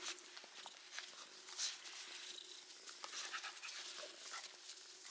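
Puppy panting in short, irregular breaths close by.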